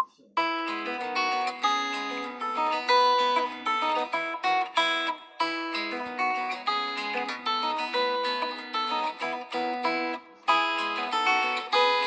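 Xiaomi Redmi Note 7 MIUI ringtone: a plucked acoustic-guitar melody that starts after a short click. About ten seconds in it breaks off briefly and starts over, looping.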